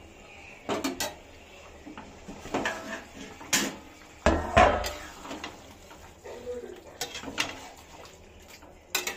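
Steel lid clattering as it is lifted off a steel kadhai of curry and set down, with a heavier knock about halfway through, followed by a steel ladle clinking and scraping against the pan while stirring.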